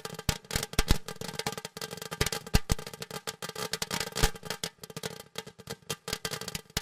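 Ground fountain firework crackling: a dense, irregular stream of sharp pops and crackles over a faint steady low tone.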